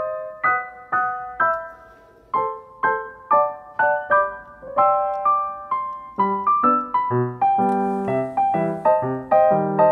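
Background piano music: a slow melody of single struck notes, with lower accompanying notes joining about six seconds in.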